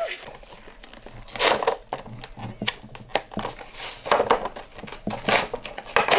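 Plastic blister pack and cardboard backing card of a toy monster truck being torn open by hand: irregular crinkling and ripping, loudest about a second and a half in and again near the end.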